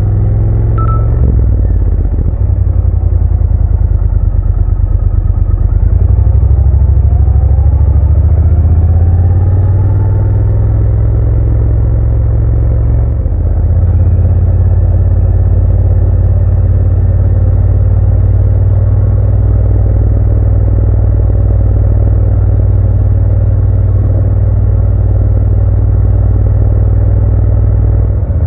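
Motorcycle engine under way: it pulls up in pitch over the first several seconds, dips briefly as at a gear change about halfway through, then runs steadily at cruising speed, with a heavy low rumble.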